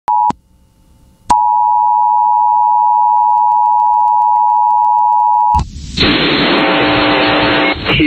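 Emergency Alert System attention signal: a steady two-tone beep at about 850 and 960 Hz. A short blip comes first, then after a brief gap the tone holds for about four seconds. It cuts off about two seconds before the end and gives way to a brief rush of noise and a busier, noisier sound.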